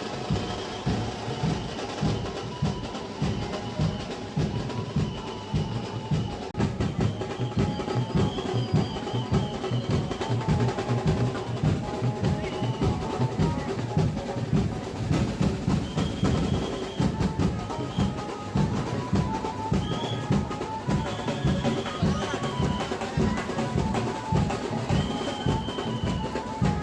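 Drums of a Ganpati procession band playing a fast, steady beat with rolls, with some held higher notes over the drumming.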